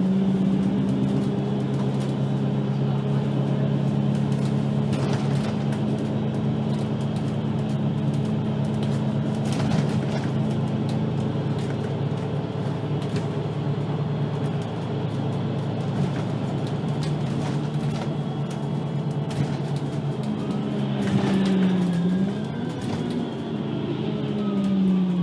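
Diesel engine of a VDL Citea LLE-120 city bus running at a steady speed for most of the stretch. About 21 seconds in its pitch dips and climbs again, and near the end the revs fall away.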